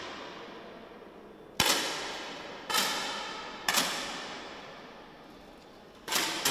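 Four sharp 10 m air rifle shots along the firing line of an indoor range, each ringing on briefly in the hall; the first three come about a second apart, the last after a longer pause.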